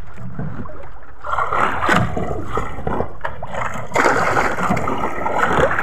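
Sea water sloshing and splashing against the hull of a small outrigger boat, a little louder from about four seconds in.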